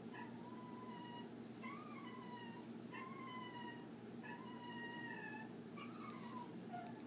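A cat meowing over and over, about one cry a second, each cry rising and then falling in pitch, over a steady low hum.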